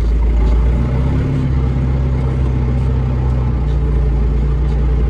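Case tractor's diesel engine working steadily under load, pulling a plough through hard clay; its note steps up slightly about three and a half seconds in.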